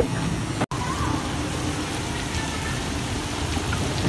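Heavy rain falling steadily onto a street and its puddles, an even hiss that cuts in after a brief break in the sound less than a second in.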